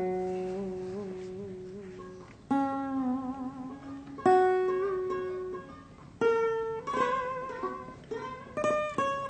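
Solo plucked string instrument playing a slow melodic introduction: single notes left to ring out with a wavering vibrato, a couple of seconds apart, then quicker notes near the end.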